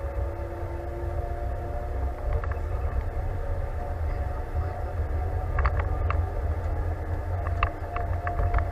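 John Deere tractor's diesel engine and drivetrain heard from inside the cab while driving along a road: a heavy low rumble with a steady whine over it. A few short clicks or rattles come in the second half.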